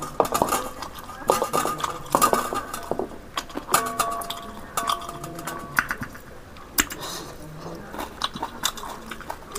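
Dishes and eating utensils clinking and knocking together in an irregular string of sharp clinks.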